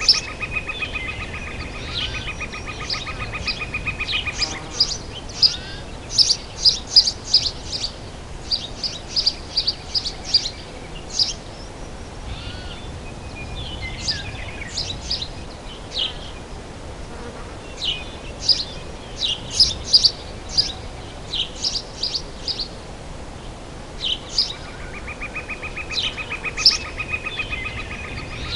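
Forest birds chirping in quick clusters of short, high notes. An insect's steady pulsing buzz runs for the first few seconds and starts again near the end, over a low outdoor background hum.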